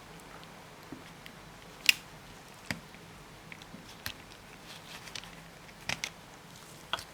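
Irregular sharp clicks and light knocks, six or so, the loudest about two seconds in, from hands and tools handling the washing machine's plastic and metal parts during the brush repair.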